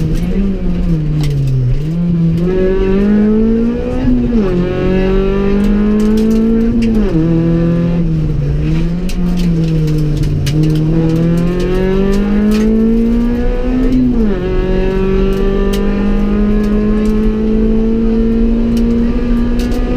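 Honda Civic EK4 rally car's engine heard from inside the cabin under hard driving. The revs climb and then drop sharply with quick upshifts about 4, 7 and 14 seconds in, then pull steadily higher near the end. Sharp clicks and knocks run over it.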